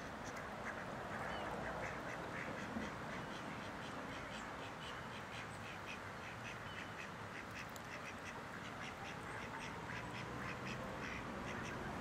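Black swan cygnets peeping, a rapid run of short, high calls several times a second, over a steady rush of running water.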